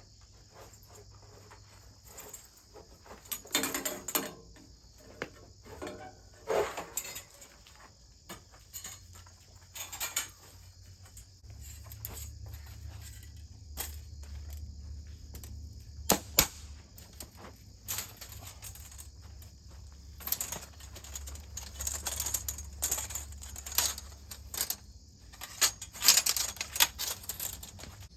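Crickets chirring steadily, with irregular sharp clicks and knocks throughout, the loudest a little past halfway and near the end. A low steady hum joins about twelve seconds in.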